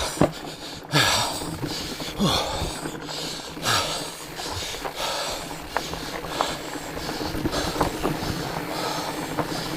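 A fat-bike rider breathing hard, huffing and puffing in repeated loud breaths while riding. Scattered clicks and rattles from the bike run over rough ground.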